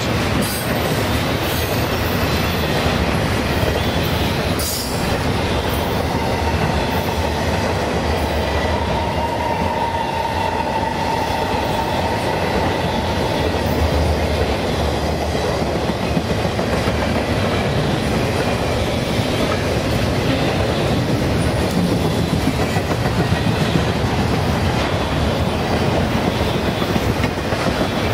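Long double-stack intermodal freight train rolling past close by: a steady rumble of steel wheels on rail with clickety-clack over the joints. A faint, thin wheel squeal rises briefly about a third of the way in.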